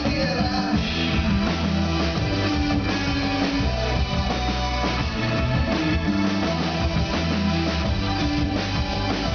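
Live rock band playing an instrumental passage: electric guitars, bass guitar and drum kit.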